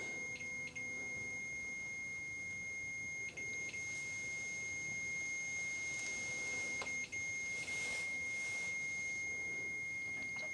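A REM pod's alarm sounding one steady, unbroken high electronic tone, the sign that its sensor has been triggered. Faint hiss and a few small clicks lie beneath it.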